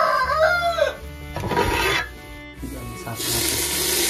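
A rooster crows at the start. About three seconds in, a ladle of smoking-hot tempering oil with dried red chillies and onion is plunged into the pot of greens curry, and a loud, steady sizzling hiss sets off.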